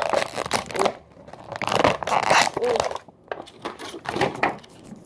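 Plastic toy packaging crinkling and tearing as it is handled, in three bursts of rustling.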